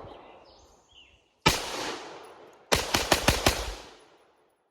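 Radical Firearms AR-15 rifle firing: a single shot, then a quick string of about six rapid shots, each ringing out and fading.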